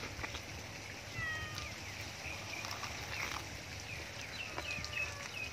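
Short, high animal calls: a falling cry about a second in and a run of several quick chirps near the end, over a steady outdoor hiss. A few soft clicks of eating at a beef leg bone come in between.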